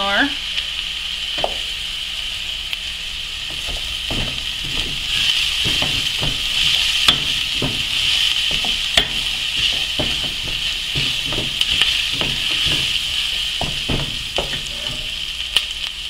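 Chopped onion and garlic sizzling in hot oil in an aluminium pot. A few seconds in, a spoon starts stirring, scraping and knocking against the pot at irregular intervals.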